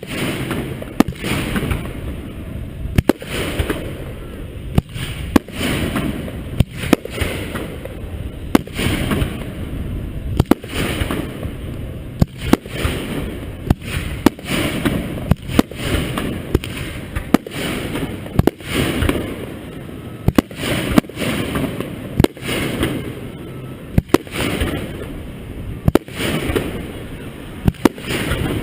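Aerial fireworks display heard close up: repeated sharp shell bursts, several every couple of seconds, each followed by a low rumbling echo, with crackling between them.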